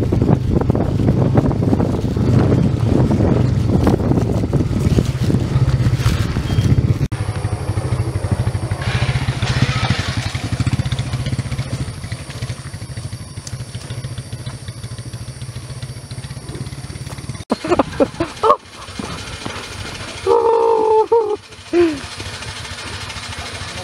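Small motorcycle engine running while riding over a rough dirt track, with a steady low drone and wind buffeting the microphone. About seven seconds in it drops to a quieter, steady engine rumble. Near the end come a few short, loud pitched calls.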